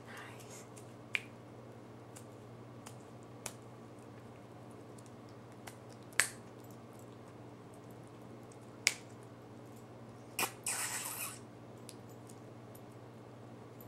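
Small dog nibbling at a fleece blanket: a few sharp teeth clicks a couple of seconds apart, then a short rustling burst about ten and a half seconds in, over a low steady hum.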